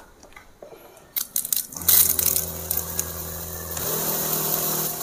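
Battery-powered knapsack sprayer's electric pump switched on with a few clicks, then running with a steady hum while the spray gun hisses out a jet of water. Only one of the sprayer's two pump motors is running.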